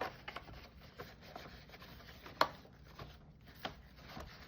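Light rubbing and handling of a Roomba filter and plastic parts as it is cleaned, with scattered small clicks and one sharper plastic click about two and a half seconds in.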